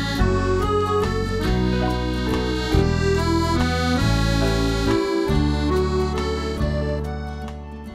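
Instrumental background music of held notes and chords that change every second or so, fading out near the end.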